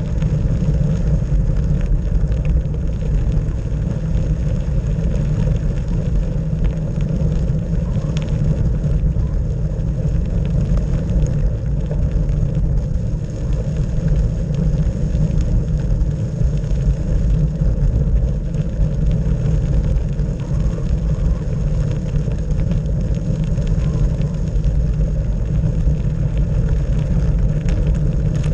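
Bicycle rolling along a gravel track: a steady low rumble of the tyres on the loose gravel, shaken through the handlebar-mounted camera.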